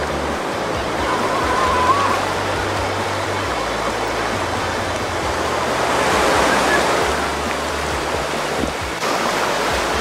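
Surf washing through shallow water at the shoreline, swelling about six seconds in as a wave comes through. Background music with a bass line plays underneath.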